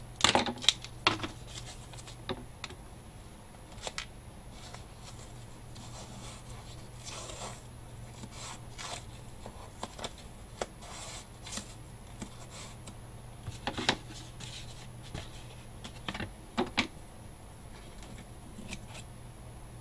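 Masking tape handling on greyboard: tape pulled and torn off the roll with a crackle in the first second, then scattered rubs, taps and clicks as it is pressed down along the board's edge and trimmed with scissors near the end, over a faint steady hum.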